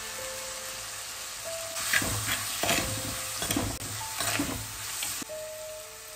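Steel spoon stirring and scraping mango pieces and spices around an earthenware clay pot, over a sizzle of hot oil; the stirring starts about two seconds in and stops about five seconds in, leaving a faint sizzle.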